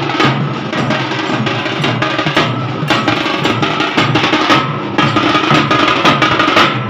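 A troupe of dollu, the large barrel drums of Karnataka's Dollu Kunitha dance, beaten with sticks together in a loud, dense, driving rhythm.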